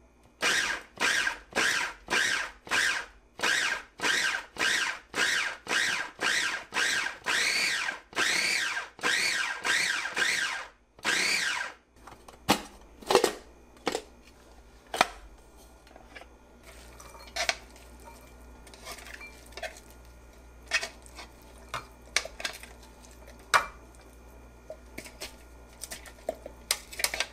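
KitchenAid 5-cup food chopper pulsing a load of red onion: about twenty short motor bursts, roughly two a second, each a quick whir that rises and falls, for about eleven seconds. After that come scattered clicks and knocks of the plastic blade, bowl and lid being handled as the chopped onion is emptied out.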